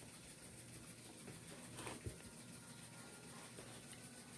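Quiet room tone with a single faint click about two seconds in.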